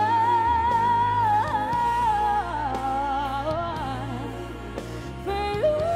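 Live singing over band accompaniment: a high sung note is held for about two and a half seconds, then the voice moves through lower notes, and a new note comes in near the end.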